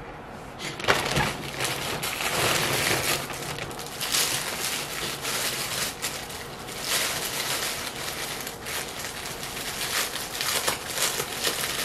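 Plastic packaging crinkling and rustling in irregular bursts as a t-shirt is pulled out of its bag.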